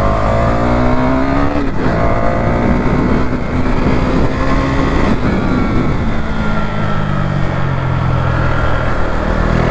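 KTM motorcycle engine on its stock exhaust, pulling hard through the gears: the revs climb, break for an upshift about two seconds in, hold steady, shift again about five seconds in, then fall away as the bike slows near the end. A rush of wind runs underneath.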